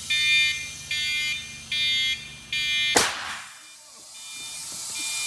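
Electronic beeping, four beeps a little under a second apart. About three seconds in, a homemade compressed-air cannon fires with one sharp blast. After it a hiss of air slowly grows louder as the cannon's pressure builds back up.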